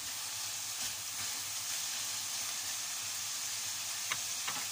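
Chicken pieces sizzling steadily as they fry in oil in a pan. Two short clicks come about four seconds in.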